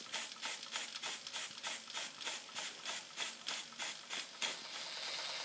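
Fleischmann 135/2 toy live-steam engine running, its cylinder exhausting in rhythmic puffs about three times a second, each with a light clicking clatter. Near the end the puffs give way to a steady hiss of steam.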